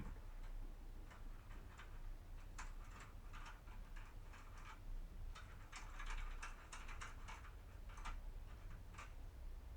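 Faint, irregular metal clicks and light scrapes of a foil impressioning pick being pressed and worked in a Mottura Project lock cylinder.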